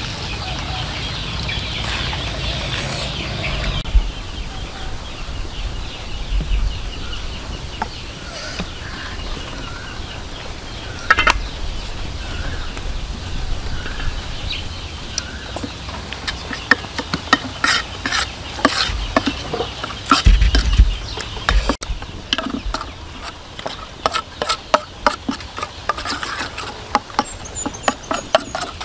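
Chickens clucking in the background. In the second half come many quick clicks and scrapes of a spoon against an enamel plate as the chili sauce is stirred.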